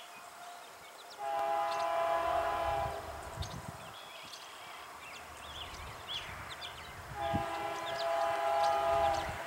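Horn of the lead Canadian Pacific GE AC4400CW diesel locomotive sounding two long, steady chord blasts for a grade crossing as the freight approaches, with the diesels' low rumble underneath. Birds chirp between the blasts.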